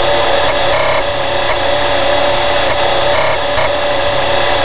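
Emulated TRS-80 floppy disk drive sound, a loud steady whir with a few brief clicks, as the drive runs to load Disk BASIC.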